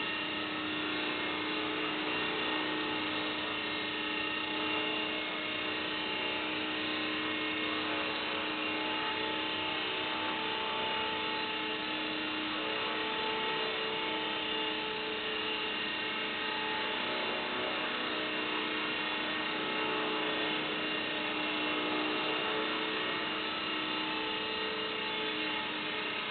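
Small electric RC helicopter in flight: the steady whine of its electric motors and spinning rotors, the pitch shifting a little as it is steered around.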